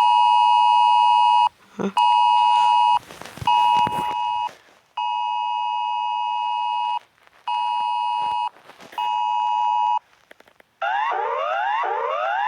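Emergency-alert attention tones for a high wind warning: six steady electronic beeps, each about one to two seconds long, with short gaps and a few clicks between them. About two seconds from the end they give way to a repeating rising sweep, just over one sweep a second.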